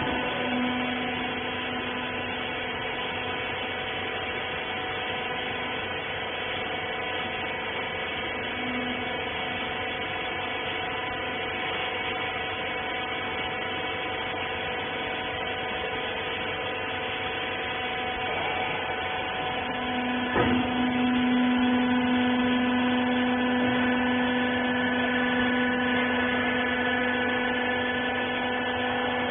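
Hydraulic baling press's electric motor and pump running with a steady hum and whine. A click comes about twenty seconds in, and the hum grows louder after it.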